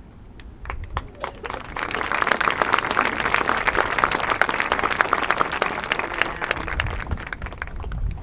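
Crowd applauding in the stands, a few scattered claps at first, building to full applause about two seconds in and thinning out near the end.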